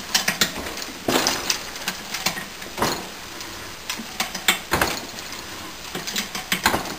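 Hand-operated Ridgid ratchet pipe threader cutting a tapered thread on 3/4-inch pipe: the handle is worked in strokes, giving clusters of metal ratchet clicks and knocks about every second or two as the die cuts near the end of the thread.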